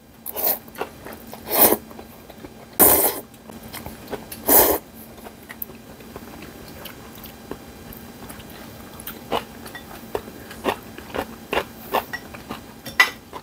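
A man slurping noodles from a bowl of gomtang (beef bone soup): four loud slurps in the first five seconds, then quieter chewing with scattered small clicks.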